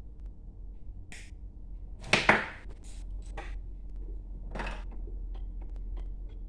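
Small taps, clicks and a clatter of tools and wires being handled at a workbench, the loudest knock about two seconds in, with a few short hissing sounds and faint clicks after it over a steady low hum.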